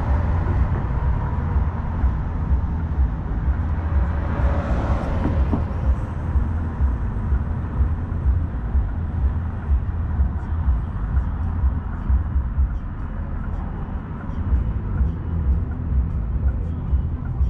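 Street traffic: cars passing close by over a constant low rumble, with one swelling past about four to five seconds in.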